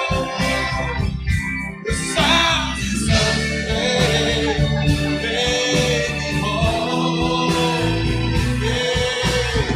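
Band music with guitar playing over a steady low end, between sung lines of the song.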